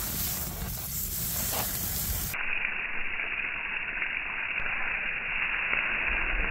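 Steaks sizzling on a wire grill rack over an open wood fire, a steady hiss with the fire. About two seconds in the sound changes abruptly and turns duller.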